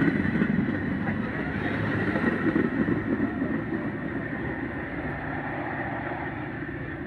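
Metra commuter train's double-deck cars rolling past on the rails as the train departs, the noise fading steadily from about halfway through as the rear cab car pulls away.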